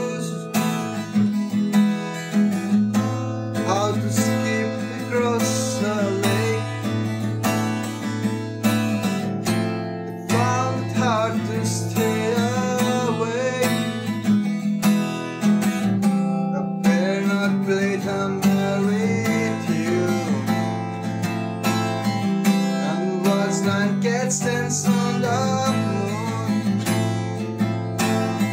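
Höfner acoustic guitar playing chords, with a melody line above it that slides and bends in pitch.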